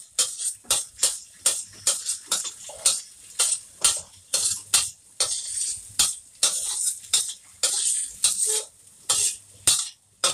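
A metal wok spatula scrapes and knocks against a stainless steel wok about three times a second as minced garlic is stir-fried, with a light sizzle of garlic frying in oil between the strokes.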